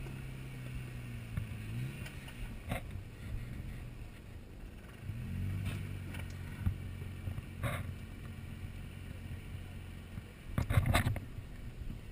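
Jeep Wrangler JK's V6 engine running at low revs while crawling over rock, its pitch rising and settling as the throttle is worked. A few sharp knocks of the Jeep on the rocks, the loudest cluster near the end.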